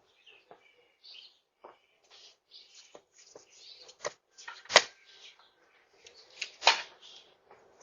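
Scattered clicks and knocks over a doorbell camera's microphone, with faint chirps between them; the sharpest knocks come about five and about seven seconds in.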